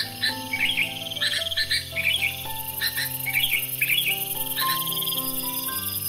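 Yellow-vented bulbul (trucuk) singing short, quick chirping phrases about once a second, over background music of low held notes.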